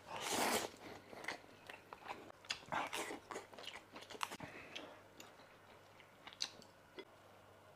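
A person slurping noodles and chewing: a long slurp of about half a second at the start, the loudest sound, then shorter slurps, smacks and chewing noises at irregular intervals.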